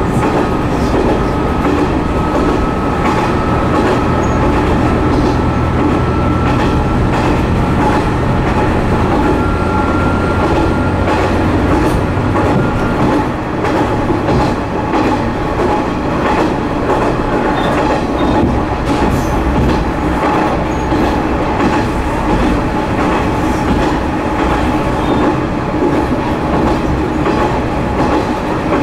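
Kuma River Railway KT-500 diesel railcar running along the line, heard from inside the cab. Steady wheel-on-rail noise with rail-joint clicks runs throughout. Under it sit the engine's hum and a faint whine rising slowly in pitch, which fall away about halfway through.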